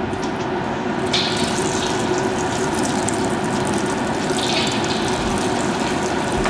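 Battered chicken pieces deep-frying in hot oil in a wok, the oil sizzling and bubbling steadily. The sizzle swells sharply about a second in and again at about four and a half seconds, as further pieces go into the oil.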